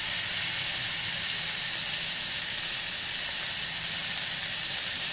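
Beef tenderloin searing in butter and olive oil in a cast-iron skillet: a steady sizzle as one end of the fillet is pressed into the hot fat.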